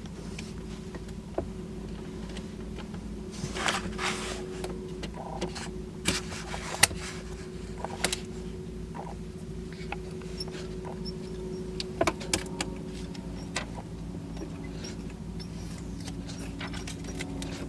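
A sailboat's engine running steadily while motoring, an even mechanical hum with a low pulsing beat, with occasional clicks and knocks on board.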